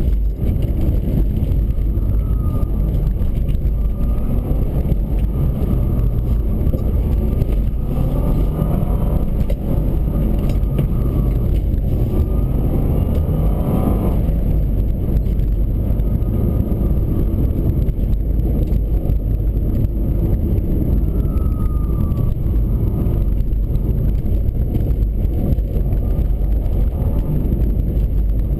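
A 2003 Subaru Forester's flat-four engine and road noise heard from inside the cabin while driving, a steady low rumble. The engine pitch rises and falls several times as it accelerates and eases off.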